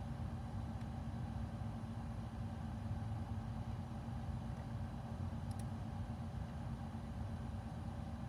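Steady low mechanical hum with a few constant tones, like a fan or motor running in the room, with a couple of faint ticks about five and a half seconds in.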